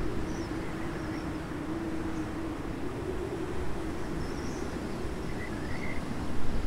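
Breeze buffeting the microphone over open countryside, with a steady low drone from a distant engine underneath and a few faint high chirps.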